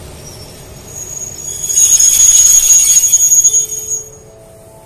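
A passenger train's coach brakes squeal shrilly as the train draws to a stop at the platform. The squeal swells about a second in and cuts off near the end, where a rising three-note chime begins.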